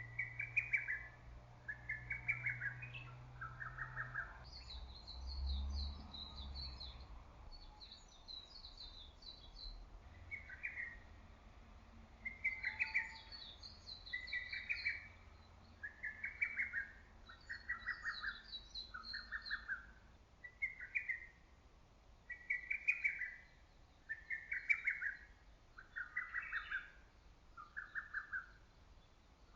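Lesser cuckoo singing its phrase of four or five sharp, slightly falling notes over and over. A second, higher-pitched bird twitters in short runs between the phrases.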